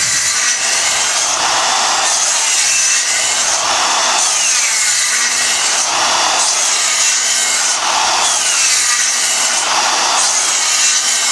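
Circular saw running on a guide rail, cutting a dado in plywood. The motor's pitch dips several times as the blade bites under load.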